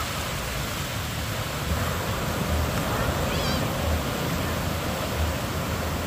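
Surf washing in over a flat sandy beach, a steady rushing of waves, with wind rumbling on the microphone. About three and a half seconds in, a brief high wavering cry.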